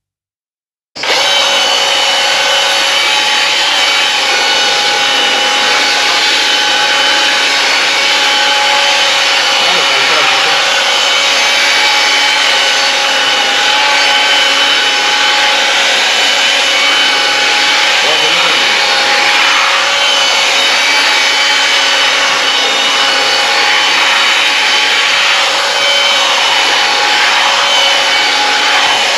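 Electric motor of a power cleaning tool running steadily with a constant whine. It starts abruptly about a second in.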